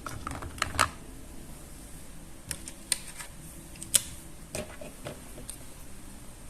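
Scattered, irregular light clicks and taps of plastic toy pieces being handled, with the sharpest click about four seconds in.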